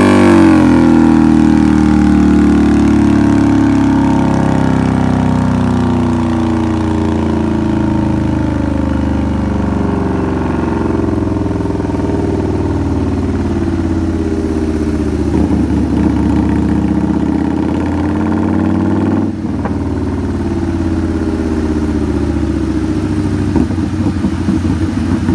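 Indian V-twin motorcycle engine on a roller dyno, its revs falling away at the end of a pull and then settling to a steady idle. A few short blips of the throttle come near the end.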